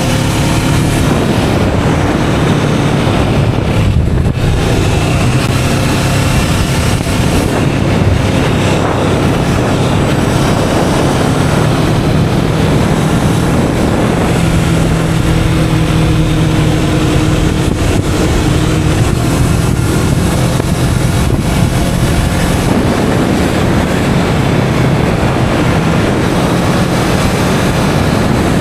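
Kawasaki Vulcan S 650 parallel-twin engine running on its stock exhaust while riding, its note shifting a little in pitch with speed. Heavy wind noise buffets the action camera's built-in microphone over it.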